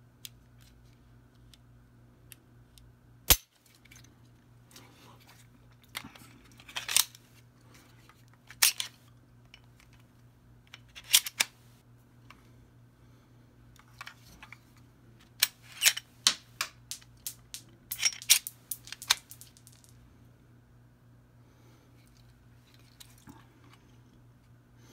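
Sharp metallic clicks and clacks of a cutaway Glock 19 pistol's slide and action being worked by hand, coming in small clusters. The loudest is one sharp snap about three seconds in, and the clicking stops a few seconds before the end.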